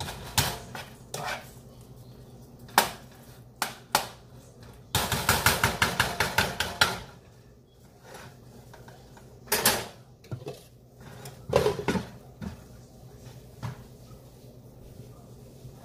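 Cookware and utensils clattering: scattered knocks and clinks, then a fast, even run of strikes lasting about two seconds, like a utensil worked quickly in a pot, followed by a few more knocks.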